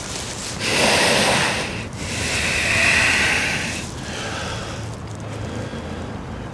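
A person breathing slowly and audibly close to the microphone during a held yoga pose: two long breaths of about one and two seconds, then a fainter one.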